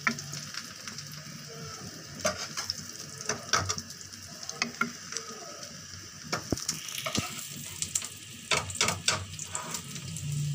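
Egg-coated shami kebabs shallow-frying in hot oil with a steady sizzle, broken by scattered sharp clicks and clacks of a slotted spoon as they are lifted out onto a plate, with a quick run of clicks near the end.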